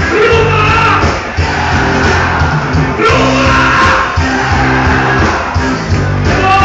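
Live punk rock band playing loudly, with shouted, sung vocals over bass, guitars and drums.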